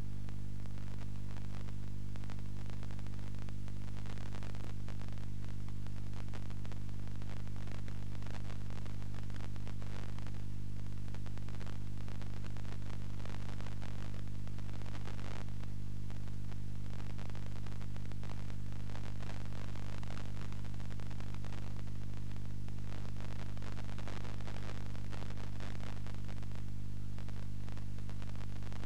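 Steady low buzz with static hiss from a TV receiver's sound on a weak amateur-television signal on 434 MHz.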